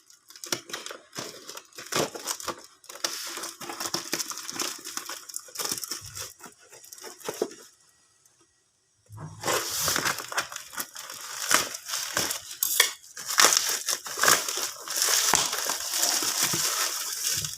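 Brake pad packaging being handled and opened: cardboard and wrapping crinkling and tearing, with many small clicks and knocks. It drops out for about a second near the middle, then resumes louder.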